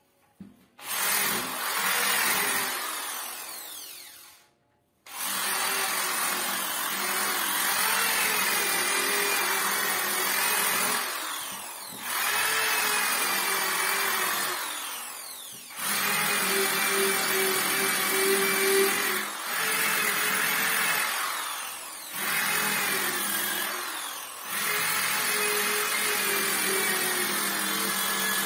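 Electric sander sanding a wooden door: switched on about a second in, running down to a stop around four seconds, then restarted and running on, with its motor slowing and picking up again several times.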